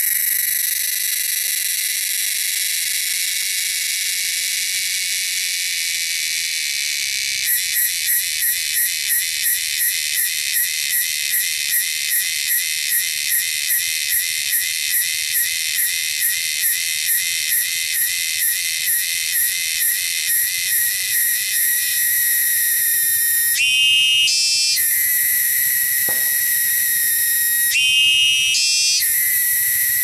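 A cicada singing a loud, shrill, high-pitched buzz. About seven seconds in it breaks into a regular pulsing of roughly three beats a second. It returns to a steady buzz for the last third, where it briefly changes tone twice.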